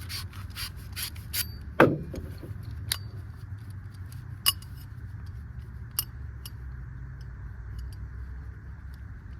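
Sandpaper rubbing a pipe end clean for soldering, in quick strokes about three a second that stop about a second and a half in. A loud falling sweep follows near two seconds in, then a few sharp metallic clicks over a steady low hum.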